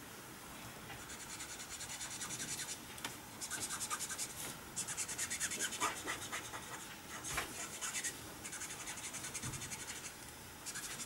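Copic alcohol marker's brush nib stroking quickly back and forth over stamped card, a soft rapid scratching in several runs of strokes, blending the lightest skin tone.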